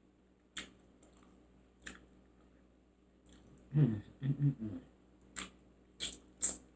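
Close-up biting and chewing of fried chicken wings: scattered sharp crunches and mouth clicks, with a few short hummed vocal sounds about four seconds in.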